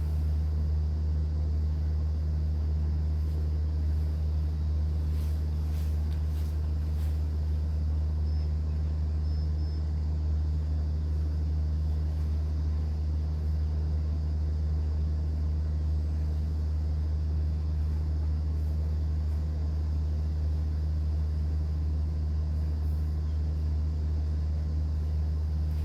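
Cruise boat's engine running on board with a steady low hum, over a faint wash of sea water.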